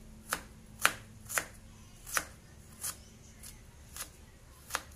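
Kitchen knife slicing ginger on a plastic cutting board: about eight sharp knocks of the blade hitting the board, coming irregularly every half second to a second.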